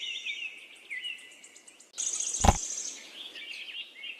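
Small birds chirping and twittering, with one dull thump about two and a half seconds in.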